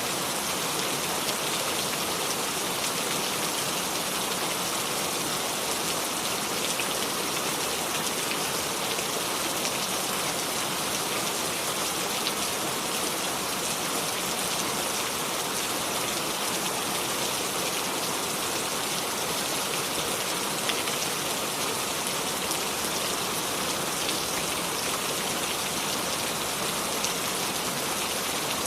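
Steady rain with dense pattering of raindrops, no thunder, an even hiss with a few slightly louder individual drops.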